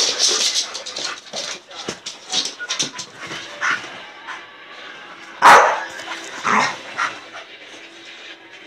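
Staffordshire Bull Terrier barking in excited play: a string of short barks and yips amid scuffling, the loudest bark about five and a half seconds in.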